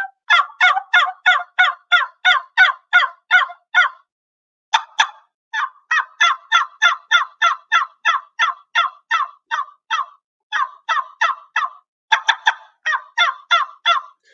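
Turkey yelps blown on a short tube call, a latex diaphragm stretched over a small canister. Three long runs of evenly spaced yelps, about three a second, each note dropping in pitch, with brief pauses about four and ten seconds in.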